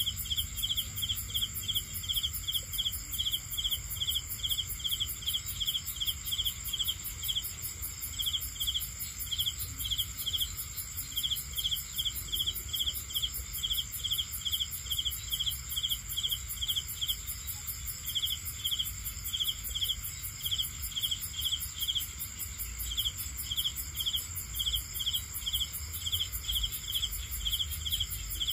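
Crickets and other night insects calling: a high chirp repeated about three times a second, breaking off briefly a few times, over a steady high-pitched trill.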